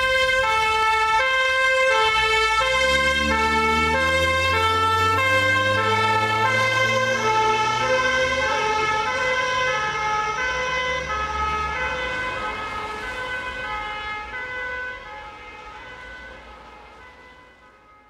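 Ambulance two-tone siren, switching between a high and a low note about every half second, with the vehicle's engine rising in pitch a few seconds in; it fades out near the end.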